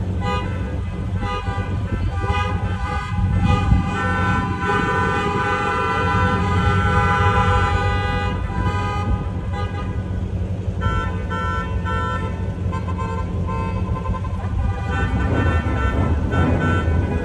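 Car horns honking, several at once, in long held blasts and runs of short beeps, over the steady low rumble of running car engines.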